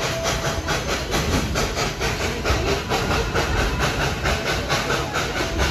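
Narrow-gauge steam locomotive, former White Pass and Yukon No. 192, working steadily at the head of the train, its exhaust chuffing at about four to five beats a second. Heard from an open passenger coach a few cars back, over the steady rumble of the coaches.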